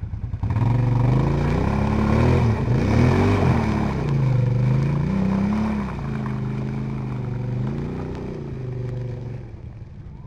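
Quad bike (ATV) engine revving up and down under load through deep mud, the revs rising sharply about half a second in. It grows fainter over the last few seconds as the quad pulls away.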